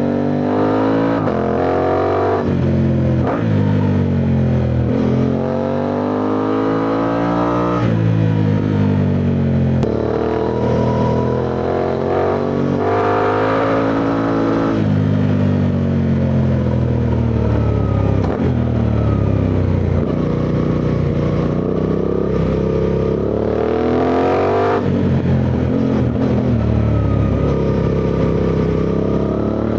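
Suzuki V-Strom 800DE's 776 cc parallel-twin engine under way, pulling up through the gears: the pitch climbs repeatedly and drops back at each upshift, falls for a few seconds mid-way as the bike eases off, then climbs again.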